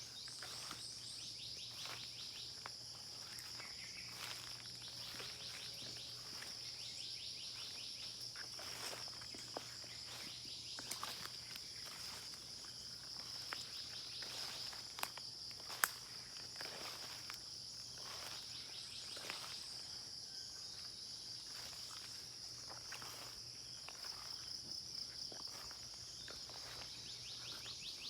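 A steady high-pitched insect chorus, like crickets, with scattered short chirps and clicks throughout and a faint low hum underneath.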